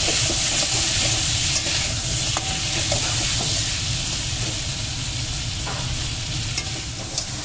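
Crab pieces frying with onion, ginger and garlic in hot oil in a metal kadai, sizzling steadily while a spatula stirs them, with scattered scrapes and clicks of the spatula against the pan.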